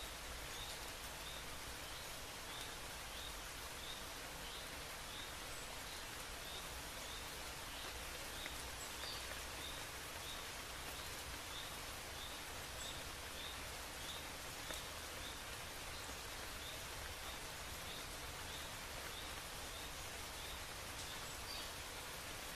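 Steady outdoor ambient hiss with a faint, high chirp repeating about twice a second.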